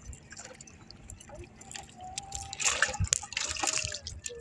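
Seawater dripping and splashing as fishing gear is hauled hand over hand out of the sea beside a wooden outrigger boat, with two louder splashes about two-thirds of the way through.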